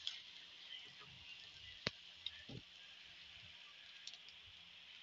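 Faint clicks and taps of a spatula against a nonstick pan and plate as cooked bitter gourd is served, over a soft steady hiss; the sharpest click comes about two seconds in.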